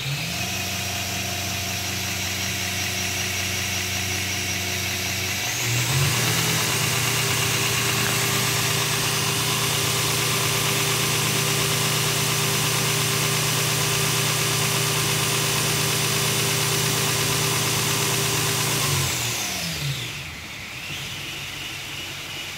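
Homemade 2x72 belt grinder, driven by a 1.5 hp Baldor three-phase motor through a VFD, running with no workpiece, a steady hum and whine over a noisy haze. About five seconds in it speeds up to a higher pitch and holds there, then slows down and goes quiet near the end.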